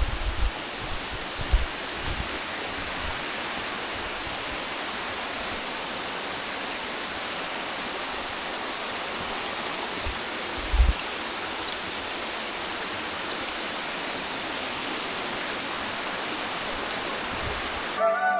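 Steady rush of flowing stream and waterfall water, with a few short low bumps in the first couple of seconds and again about 11 seconds in. The water sound cuts off abruptly near the end.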